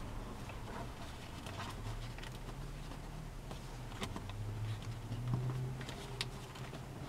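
Origami paper rustling and crackling in short, scattered ticks as it is folded and creased by hand, over a low steady hum.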